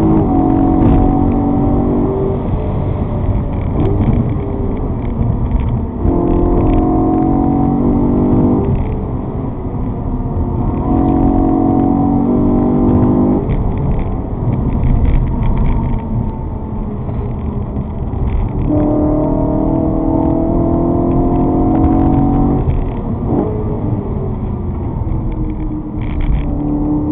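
A vehicle engine pulling hard in repeated spells, its pitch climbing under throttle and then dropping away, over a constant low rumble of road and wind noise.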